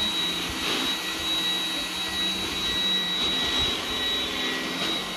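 iRobot Roomba 980 robot vacuum running and moving: a steady rushing noise with a thin, steady high whine, and lower tones that shift as it goes. This is the abnormal noise that started recently when the robot moves or turns, and cleaning its parts has not cured it.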